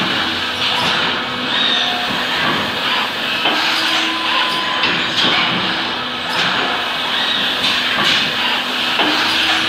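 Injection moulding machine with a side-entry robot running: a steady machine hum and hiss, with sharp clicks and knocks every second or two and short whines that come and go as the robot cycles.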